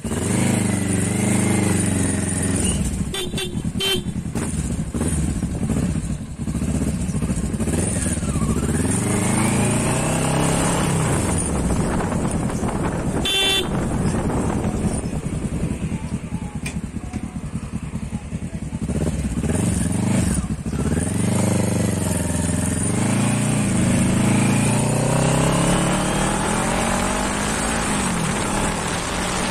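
Sport motorcycle engine pulling away and accelerating up through the gears, its pitch climbing with each gear and dropping at each shift, with a lull partway through before it pulls hard again.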